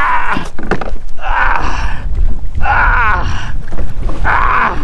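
A man grunting and straining in several short bursts as he struggles out of soft, sinking marsh mud and back onto his kayak, with water sloshing around his legs.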